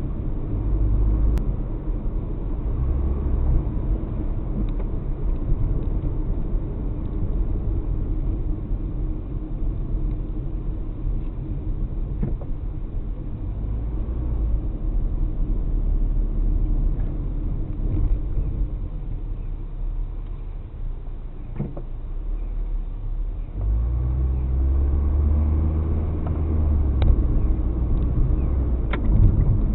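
A car driving, heard from inside the car: a steady low engine and road rumble with a few faint clicks, the rumble growing louder about three-quarters of the way through.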